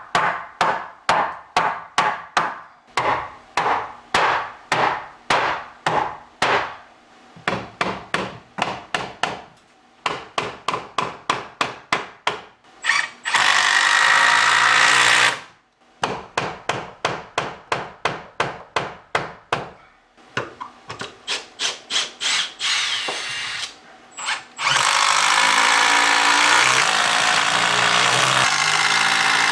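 Repeated sharp knocks on wood, about three a second, alternating with a power drill running in long steady stretches, driving structural screws into the beam.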